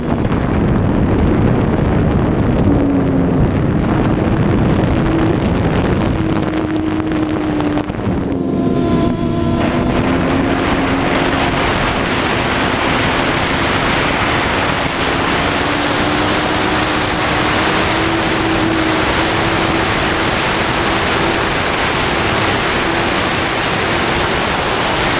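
Quadcopter drone's motors and propellers humming with a wavering pitch, heard from the onboard camera, under heavy wind buffeting on the microphone. The wind eases briefly about eight seconds in, letting the motor hum stand out, then picks up again and stays strong.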